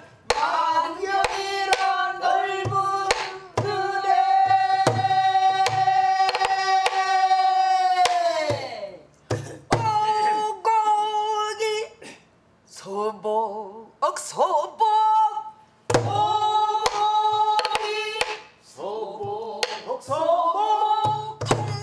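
A woman singing a Korean new folk song (sinminyo) in long held notes that slide at the phrase ends. She accompanies herself on a soribuk barrel drum: deep thumps on the drum head and sharp clicks of the wooden stick on the drum's body, in small groups every few seconds.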